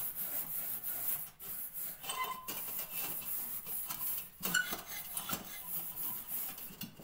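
Gritty rubbing of a hand scouring the outside of a metal teakettle with coal ash from a stove, going on without a break with a few louder strokes.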